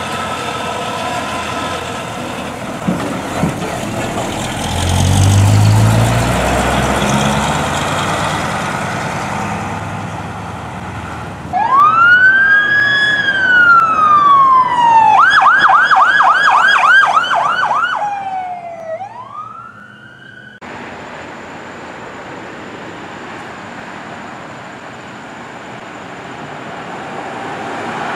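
A heavy emergency truck's engine rumbling as it moves off. Then an electronic emergency-vehicle siren starts loudly, with a slow wail rising and falling. It switches to a fast yelp of about three sweeps a second, then gives one last slow sweep and cuts off suddenly into steady road traffic noise.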